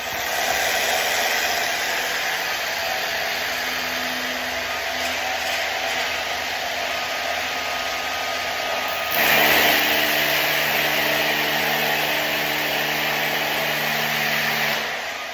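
Cordless DeWalt hammer drill running steadily, drilling into a concrete ceiling. It gets louder about nine seconds in and drops off just before the end.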